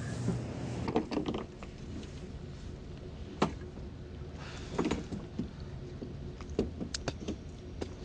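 Low steady hum of a vehicle idling, with scattered clicks and knocks of gear being handled around it. The sharpest is a single click about three and a half seconds in.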